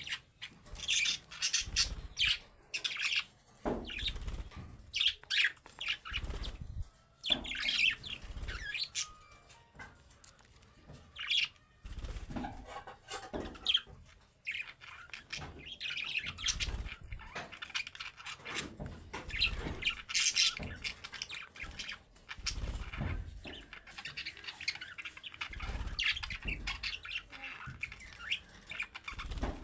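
Budgerigars chirping and chattering in repeated bursts of short, high calls, with frequent low thumps and wing flutters mixed in.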